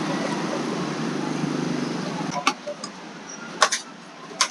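Street traffic hum, then a large knife chopping into the husk of a king coconut: one sharp strike about halfway through, a quick double strike, and another strike near the end.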